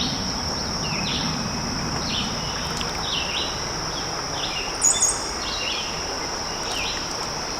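Insects droning steadily on one high pitch, with a bird giving a short repeated call about once a second and one brief higher chirp about five seconds in.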